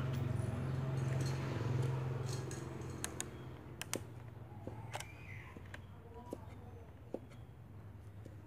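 Cleaver chopping long beans on a wooden chopping block: sharp, irregular knocks, roughly one a second. A low hum fades out over the first few seconds.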